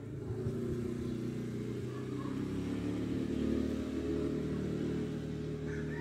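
A motor vehicle engine running, its hum growing louder toward the middle and holding there, with small shifts in pitch.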